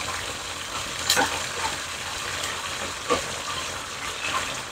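Garlic and oyster-sauce sauce with cornstarch slurry sizzling and bubbling steadily in a small wok over a gas burner, with two short sharp clicks about two seconds apart.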